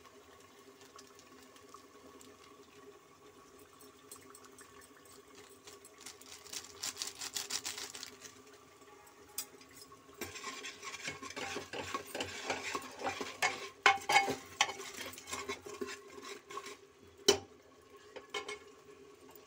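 A metal ladle stirring and scraping spice masala frying in oil in a pressure cooker, with scrapes and knocks against the pot in two spells, the longer one from about halfway; one sharp knock near the end.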